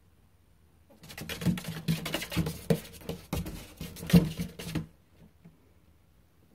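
Animals inside a wall scratching and scrabbling: a burst of rapid, irregular scratches that starts about a second in and stops about four seconds later.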